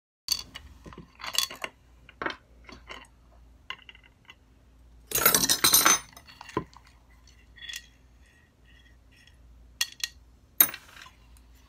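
Hand tools and small metal parts clinking and clattering on a workbench. There are scattered clinks, then a louder metal clatter lasting about a second around five seconds in, and two sharp clinks near the end.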